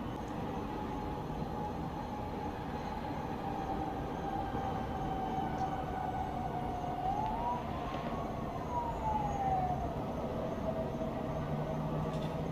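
Emergency-vehicle siren wailing over a steady town hum: one held tone sinks slowly, then makes a single slow rise and fall about seven to ten seconds in.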